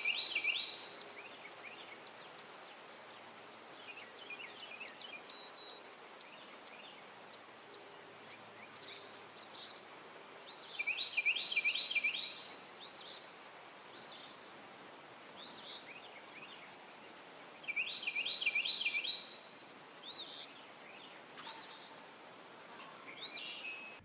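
Countryside birds ambience: several birds chirping and singing over a faint steady background hiss, with bursts of rapid trilled song at the start, about eleven seconds in and again around eighteen seconds.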